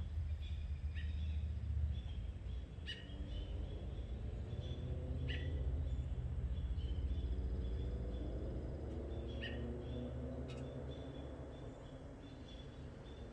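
Small birds chirping in short, repeated high calls over a steady low rumble.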